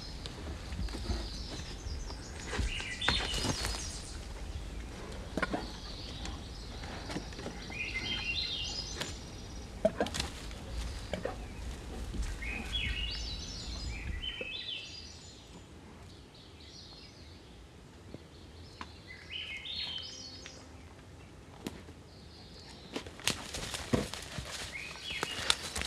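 Forest songbirds singing repeated short phrases of quick stepped notes, with scattered faint clicks and snaps. A low rumble fills the first half and drops away about halfway through.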